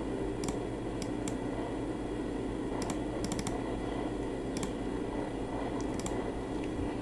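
About ten sharp computer mouse clicks, scattered singly and in quick little runs, over a steady low hum.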